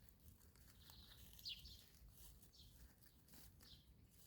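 Faint bird chirps: short, high, slightly falling notes repeating every half second to a second.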